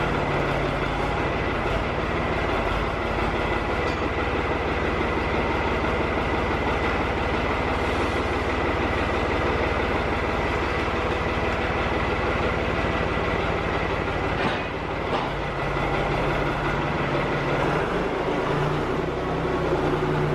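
Farm loader tractor's engine running steadily, with a short dip in level about fifteen seconds in.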